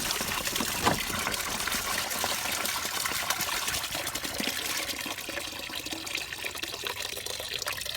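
Windshield washer fluid draining out of the reservoir's open pump hole into a bucket: a steady pouring, splashing stream that eases slightly toward the end.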